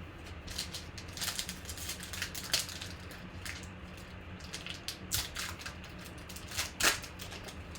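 Football trading cards being handled and flipped through by hand, in a run of short rustling and sliding scrapes, the loudest near the end, over a steady low electrical hum.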